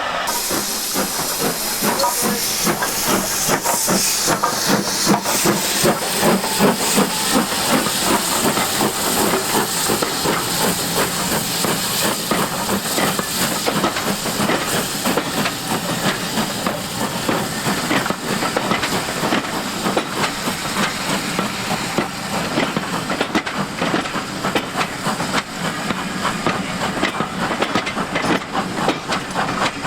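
Steam locomotive working, with a loud hiss of escaping steam in the first few seconds over a quick, even pulsing of exhaust beats that runs on throughout.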